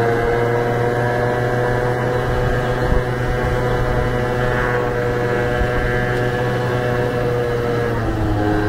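Vespa scooter's single-cylinder engine running steadily while riding, its pitch falling near the end as it eases off.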